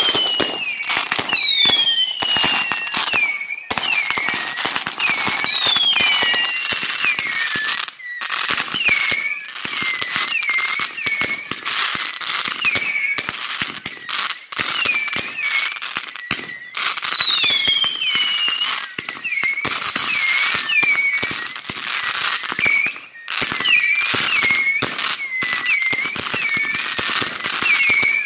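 Fireworks display in a continuous finale: a dense run of bangs and crackling, with many short whistles falling in pitch one after another and a few longer falling whistles. There are brief lulls a few times.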